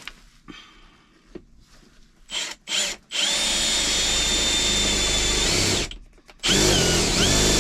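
Power drill with a 19/64-inch bit boring a mounting-screw hole: two short blips of the trigger, a steady run of about three seconds with a high whine, a brief stop, then a second run whose whine wavers in pitch as the bit bites.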